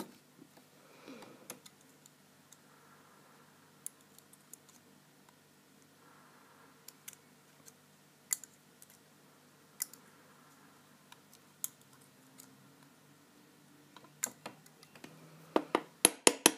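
Small, sparse metallic clicks and scrapes of tools working inside an American 1105 padlock's pin chamber to free a stuck spring. Near the end comes a rapid run of sharp clicks, about six a second.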